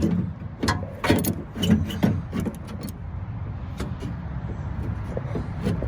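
Pliers biting on and pulling the metal retaining clip of a 1979 Chevy door lock cylinder: a run of sharp metallic clicks and scrapes in the first two and a half seconds, then only a few faint ticks over a steady low rumble.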